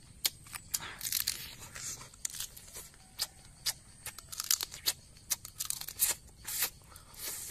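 A person eating boiled crab up close: meat being pulled from the shell and chewed, heard as irregular wet clicks, smacks and crackles.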